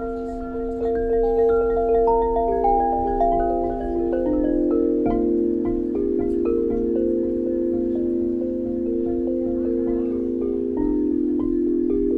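Chime-like tones at several pitches, each held for a second or more and overlapping into a slowly shifting chord, over a low rumble of wind on the microphone.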